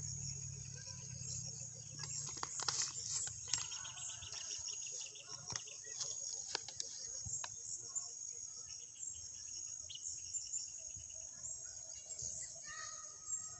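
Steady, high-pitched insect chorus, with a few sharp clicks and some short repeated chirps over it.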